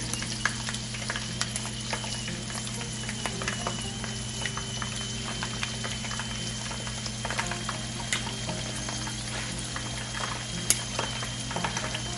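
Shell-on shrimp frying in hot oil in a pan: a steady bubbling sizzle with frequent small crackling pops, over a steady low hum.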